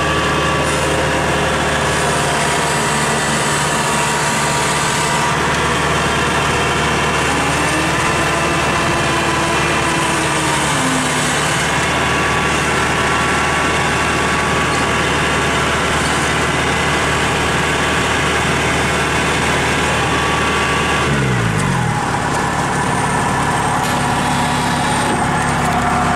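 Kubota DC-70 rice combine harvester's diesel engine running steadily. Its pitch drops sharply about 21 seconds in, then it runs on.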